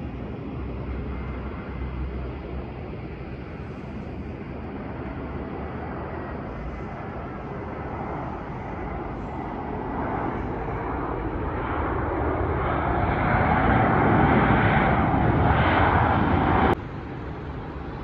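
An airliner's engines running, growing steadily louder as the aircraft comes closer, then cut off suddenly near the end.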